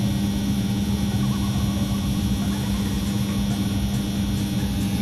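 LPG combi boiler running with a steady hum as it goes through its ignition sequence after being reset. The boiler keeps failing to ignite first thing in the morning, a fault the engineer suspects lies in its LPG injectors.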